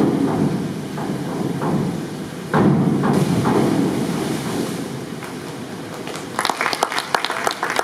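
A diver's springboard takeoff and entry splash into a pool: two loud hits, at the start and about two and a half seconds in, each trailing off in water noise. Scattered clapping starts near the end.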